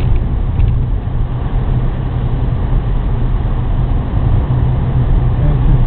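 Steady running noise of a car driving, heard from inside its cabin: engine and tyre drone with no change in speed.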